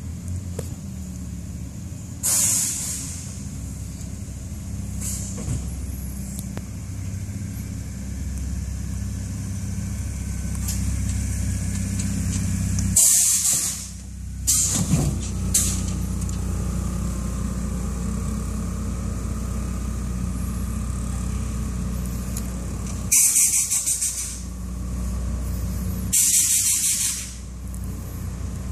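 GMC Sonoma pickup's engine running steadily while its air ride suspension lets off several sharp hisses of air from the air bag valves, a few of them lasting about a second.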